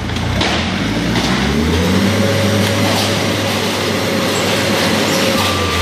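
Propane forklift engine running hard as the forklift pushes into a wall, with a whine that rises about two seconds in and then holds steady, and a few sharp cracks and knocks of wall material breaking. A reversing beep starts near the end.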